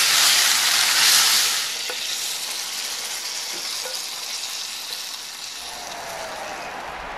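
Beef intestines and onions sizzling in a thickening chili sauce in a pan as they are stirred with chopsticks. The sizzle is loud for about the first second and a half, then drops to a quieter sizzle with a few faint clicks as the pan is tipped off the heat and the food is scraped onto a plate.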